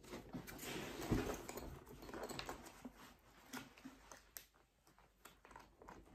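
A packed North Face Borealis backpack being handled and closed up: quiet rustling of its fabric with scattered light clicks and scrapes, busiest in the first half and sparser later.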